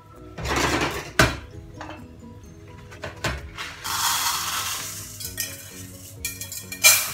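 Kitchen clatter: a metal pot and its lid knocking on the counter three times, and rice grains pouring from a bag into the metal pot with a rushing hiss. Soft background music plays underneath.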